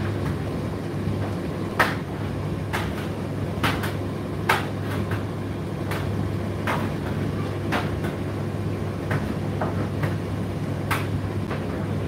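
Indesit IDC8T3 condenser tumble dryer running: a steady motor-and-fan hum, with irregular light knocks from inside the drum about once a second.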